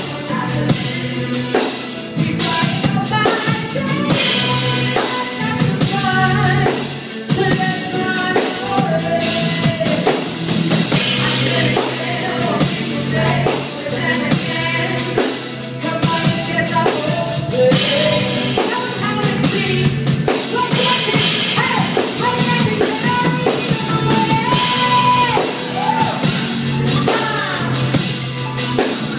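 Live band music: electric guitars and a drum kit playing a steady beat, with bending guitar or vocal lines over it.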